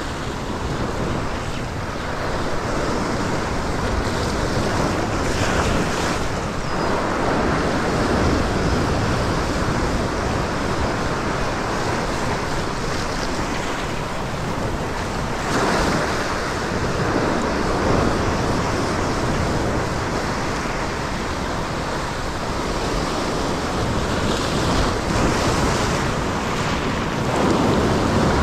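Ocean surf surging and breaking over a rock ledge, a continuous rush that swells louder several times as sets of waves wash in, with wind buffeting the microphone.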